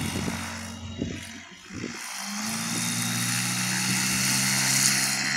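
Light aircraft's piston engine and propeller running. It is throttled back briefly, then power comes up about two seconds in and holds steady and louder, as at the start of a takeoff run on a grass strip. A few low thumps come in the first two seconds.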